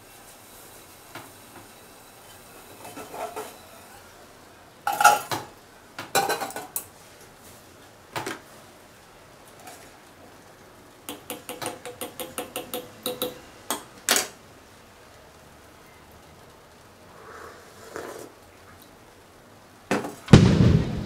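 Metal clinks and knocks, then a spoon stirring in a stainless steel mug: a quick run of taps, about five a second, ending in one sharp clink. Near the end, a fireworks sound effect sets in with a loud boom.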